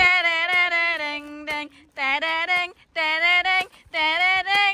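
A song laid over the footage: a high solo voice singing held notes in short phrases, with almost no accompaniment or outdoor sound beneath it.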